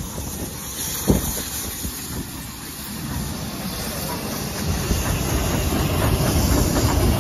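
Austerity 0-6-0 saddle-tank steam locomotive approaching and drawing alongside, with steam hissing and wheels clattering over the rail joints. The rumble grows steadily louder as it nears, with one sharper knock about a second in.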